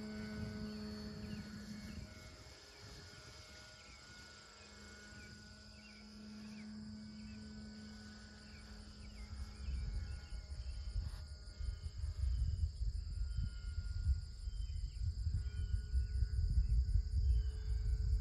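The electric motor and propeller of an E-flite Carbon-Z Cessna 150T RC plane drone faintly and steadily overhead, dropping away for a moment and then fading out as the plane goes far off, with short high chirps around it. From about ten seconds in, wind buffets the microphone with low rumbles, the loudest sound.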